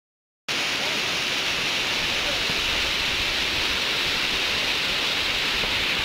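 Steady rush of falling water from a waterfall, an even hiss that cuts in suddenly about half a second in and holds at one level.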